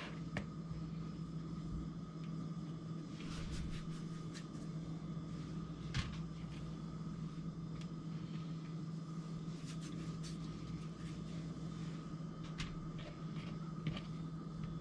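A steady low hum with a faint high tone above it, and scattered light clicks and taps now and then; one click about six seconds in is a little sharper.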